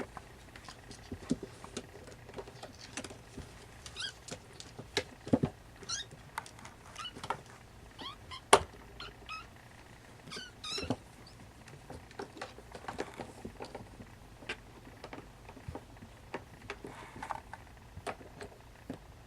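Siamese kittens at play: scattered taps, knocks and light thuds, with a few short high-pitched squeaks. The sharpest knock comes about eight and a half seconds in.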